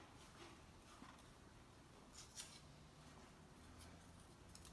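Near silence: room tone, with a couple of faint crinkles about two seconds in from foil-covered cups and a wooden lolly stick being handled.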